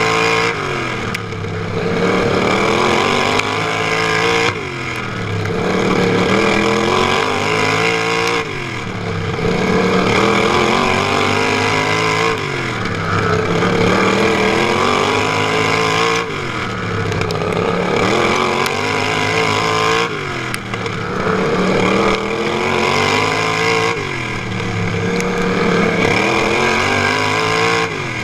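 Racing lawn mower's engine, heard from on board. It revs up and eases off again in a repeating cycle about every four seconds as it laps a tight dirt oval, with a sudden drop in loudness at each lift-off.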